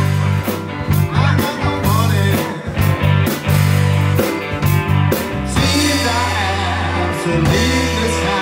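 Live rock band playing: electric bass, electric guitar and drum kit, with cymbal strikes over a heavy, steady bass line.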